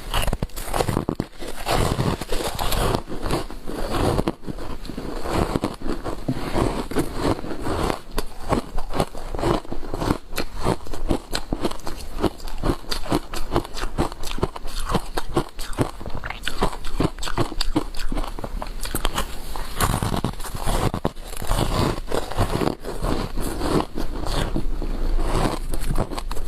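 Frozen matcha powder ice being bitten and chewed: a dense, irregular run of crunching and crackling bites.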